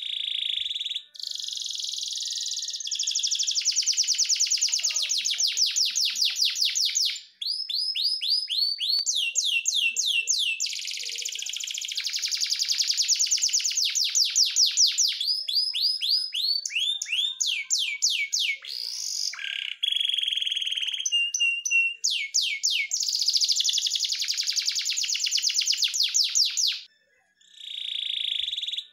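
Canary singing a long, continuous song of rapid trills and quickly repeated notes, switching to a new phrase every few seconds, with a few brief pauses.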